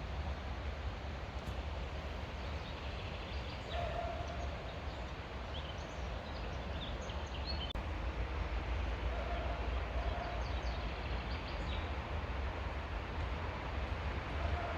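Outdoor ambience with a steady low rumble of wind on the microphone, scattered short high bird chirps, and a few brief mid-pitched calls.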